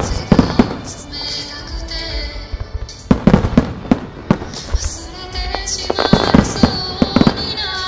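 Fireworks shells bursting in clusters of sharp bangs, about half a second in, again around three to four seconds in, and most densely six to seven seconds in, with music playing throughout.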